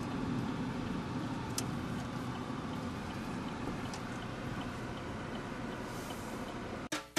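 Steady low rumble of a car's engine and tyres heard from inside the cabin as the car rolls slowly along, with two faint ticks. The sound cuts off suddenly just before the end.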